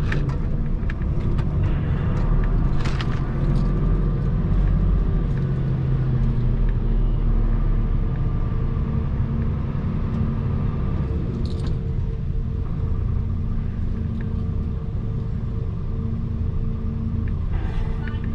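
Lorry's diesel engine running with a steady, deep drone as it boards a ferry, with a few faint clicks.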